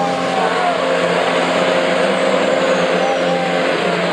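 Formula 1 cars' 1.6-litre V6 turbo hybrid engines running at low revs on the starting grid, with two short rising-and-falling revs, one near the start and one about three seconds in, over a steady dense background din.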